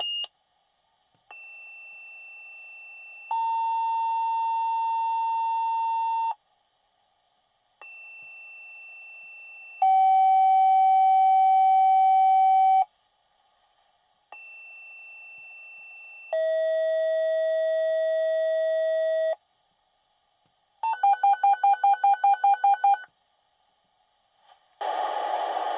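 Fire department pager activation tones over a dispatch radio channel: three two-tone sequential pages, each a quieter high tone of about two seconds followed by a louder, lower tone of about three seconds, the low tone a different pitch for each page. These set off the pagers of the companies being dispatched. A rapidly pulsing alert tone of about two seconds follows near the end.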